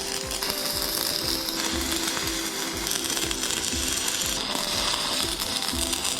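Rapid mechanical clicking like a ratchet or gear train, with background music that has held tones and a steady low beat.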